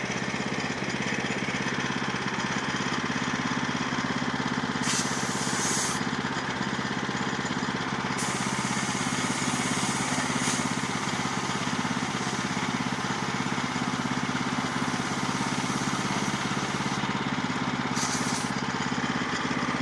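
Blower engine running steadily while blowing sawdust off the sawmill, with rushes of air that swell a few times.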